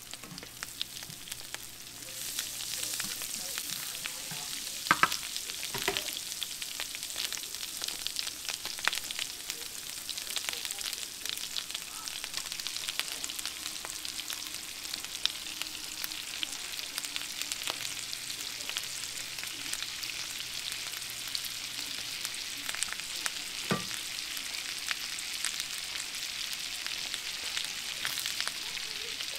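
Bass fillets frying in garlic-herb butter in a skillet: a steady sizzle that gets louder about two seconds in as the fish goes into the pan. A few sharp knocks of a utensil against the pan.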